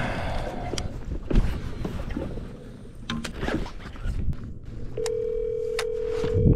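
Mobile phone on speaker ringing out: a steady ringback tone starts about five seconds in while the call to the other boat goes through. Before it there are scattered knocks and rustling.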